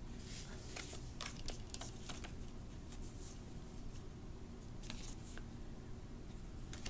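Tarot cards being handled by hand, slid and flicked through the deck: a string of short, irregular rustles and light clicks of card stock.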